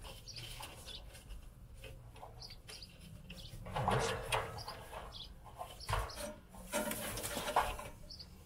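Faint bird calls, with scattered rustling and knocks of a wire being worked loose and pulled from a bundle of cables, louder about four seconds in and again near seven seconds.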